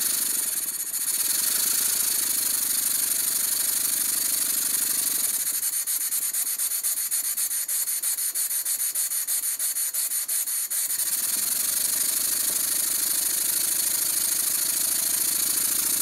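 Stuart 10V model steam engine running smoothly on compressed air with its valve timing freshly set: a steady hiss of air with a rapid, even exhaust beat. For a few seconds in the middle the beat turns crisper.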